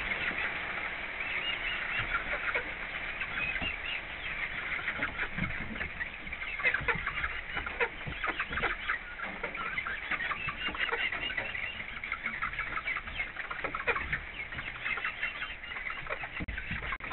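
Chickens clucking in the coop over a steady patter of rain on the roof.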